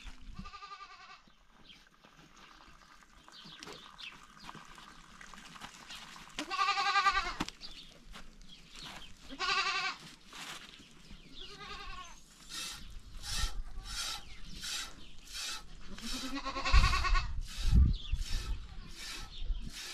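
Sheep bleating, about five wavering calls spread through, the loudest near the end. From about halfway through comes a steady rhythm of short hissing strokes, about two a second, with a couple of low thumps near the end.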